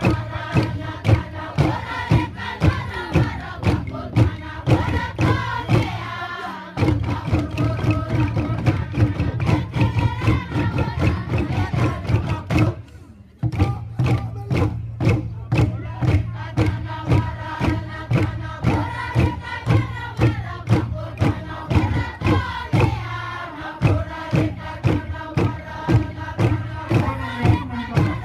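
Traditional East New Britain dance chant: a group of voices singing in unison over a steady percussive beat, about one and a half strokes a second. The sound drops out briefly about halfway through, then resumes.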